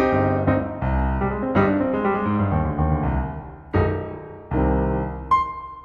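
Background piano music. Chords are struck every half second to a second, then a single high note sounds near the end and the music fades out.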